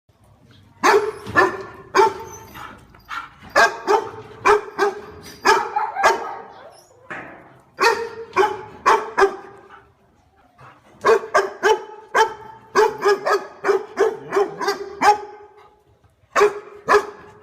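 A dog barking repeatedly in quick volleys of several barks, with short pauses between volleys. The barking starts about a second in.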